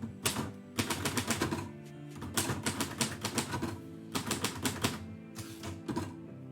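Typewriter keys striking in quick runs of typing, five bursts with short pauses between them, over steady background music.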